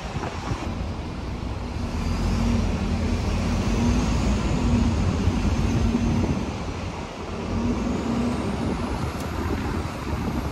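Double-decker bus heard riding through city traffic from its open top deck: a steady low engine and road rumble. A faint high whine rises in pitch twice.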